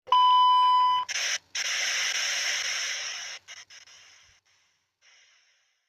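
A steady electronic beep lasting about a second, cut off and followed by a hissing whoosh that fades away over the next few seconds.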